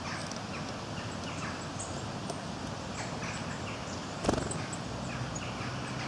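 Woodland songbirds calling with scattered short chirps and thin high notes, and one sharp knock on the wooden board about four seconds in.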